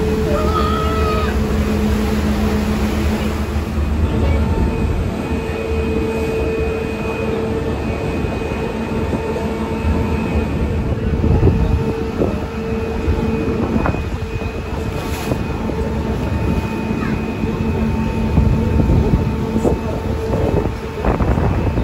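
Steady drone of a passenger ferry's engine under wind and water noise, with a short gull call about a second in.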